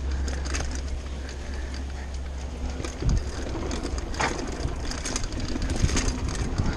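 Mountain bike riding over a wooden slatted boardwalk: tyres clattering across the planks and the bike rattling, with a few sharper knocks, over a low wind rumble on the microphone.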